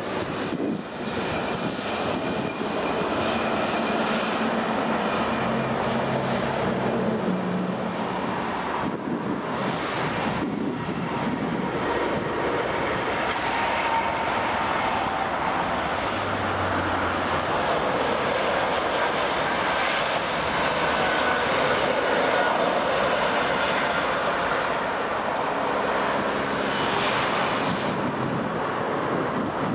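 Jet airliner engines on the runway, a steady loud rumble and hiss: first an Airbus A320neo on its landing roll, then a Boeing 777.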